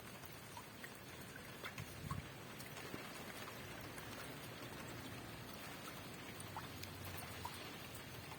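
Steady hiss of rain, with scattered individual drops ticking and a soft low thump about two seconds in.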